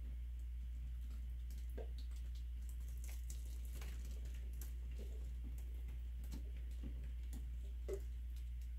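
Acrylic pour paint dripping off the edges of a tilted canvas onto plastic sheeting: scattered soft drips and ticks over a steady low hum, with a slightly louder tick near the end as the canvas is lowered.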